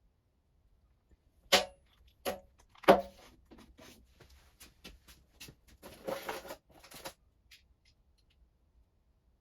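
Hand work on a car door's hinges: three sharp knocks, then a string of lighter clicks and a short rattle of tools and metal parts.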